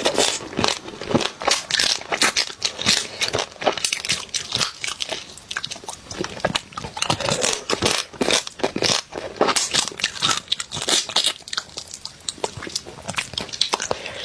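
Close-miked crunching and chewing of spicy crab, with crab shell cracking between the teeth as a dense run of crisp, irregular crackles.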